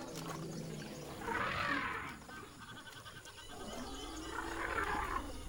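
African forest elephants calling: two harsh, rough calls, each about a second long and about three seconds apart, with a low rumble at the start.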